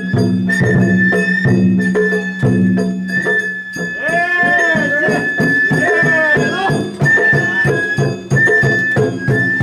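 Sawara bayashi festival music played by the float's shita-za-ren musicians: a high bamboo flute holds a long, ornamented melody over regular drum and gong strikes.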